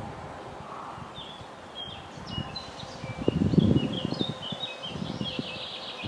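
Songbirds chirping in many short, quick notes, with a trill of rapid notes near the end. A low rustling rumble about three seconds in is the loudest sound for about a second.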